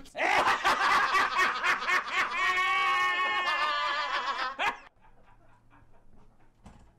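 A man laughing loudly: a quick run of laughs, then one long, high-pitched held laugh that cuts off suddenly nearly five seconds in. Faint room tone follows.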